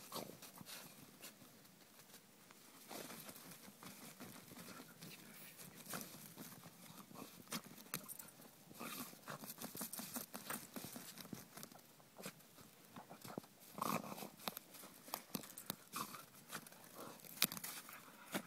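A German Pinscher digging into earth under snow with its front paws: quick, irregular scratching and scraping of soil, busier in spells.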